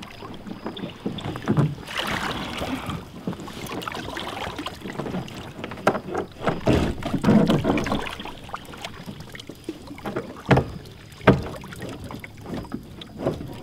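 Kayak on the water while a snagged anchor is tugged: water sloshing, with knocks and bumps against the hull and two sharp knocks about three-quarters of the way through.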